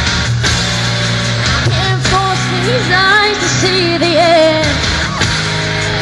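Amplified rock-style music with a woman singing. Her sung line comes in about two seconds in and stops near five seconds, over a steady loud backing.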